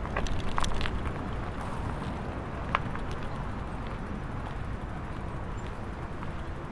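Bicycle rolling along a city street: a steady low rumble with scattered rattling clicks in the first second and one sharper knock about three seconds in.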